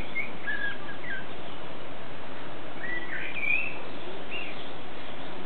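Nursing one-month-old boxer puppies squeaking: a scatter of short, high squeaks that bend up and down, with a cluster about three seconds in. A steady hiss runs underneath.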